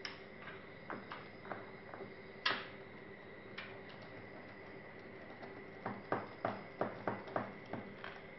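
Small sharp clicks and taps of a Sony Vaio laptop's plastic and metal parts being handled during disassembly: a louder click about two and a half seconds in, then a quick run of clicks near the end. A faint steady hum runs underneath.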